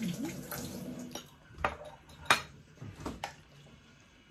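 Plates and cutlery clinking on a dinner table: several sharp knocks and clinks, the loudest about two seconds in.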